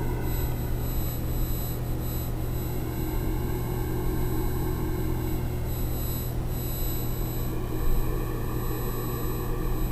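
Ambient room noise resonating inside cardboard paper tubes capped at one end, picked up by a sensitive microphone held at the tubes' open mouths: a steady, hollow, seashell-like hum. Its tone shifts slowly as the microphone moves from one tube to the next.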